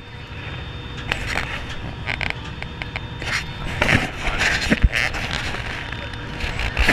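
Small passenger boat's engine running steadily as it pulls away from shore, with scattered voices and a few knocks and creaks.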